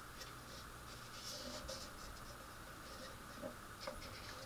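Faint scratching, rustling and a few small clicks of fingers handling a plastic model kit, over a steady low background hum.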